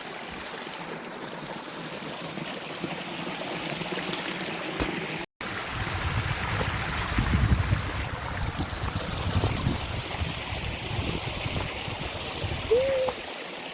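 Steady rush of a mountain stream and waterfalls, with the sound cutting out completely for a moment about five seconds in and a heavier low rumble after the break.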